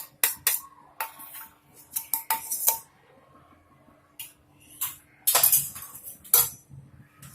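A metal spoon knocking and scraping against a kadhai as ghee is spooned into the pan: a series of separate clinks and scrapes.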